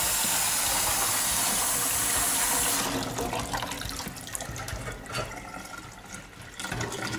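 Kitchen tap running into a stainless steel dish in the sink, filling it with water; it is shut off abruptly about three seconds in. Small clinks follow as brass clock parts are handled in a wire basket.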